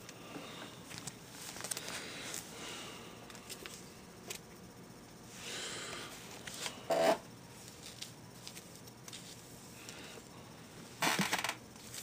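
Handling noise: faint rustling and scraping as things are moved about at close range, with two brief louder rustles about seven and eleven seconds in.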